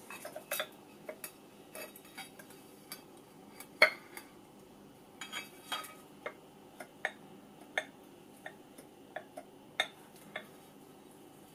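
Scattered small clicks and taps of metal parts as a gyro unit's housing and end plate are handled and worked apart, with one louder knock about four seconds in.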